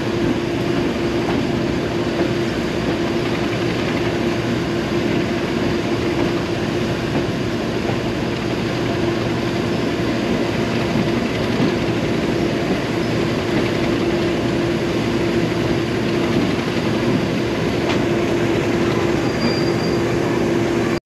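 Train running: a loud, steady rumble with one strong unchanging hum held throughout.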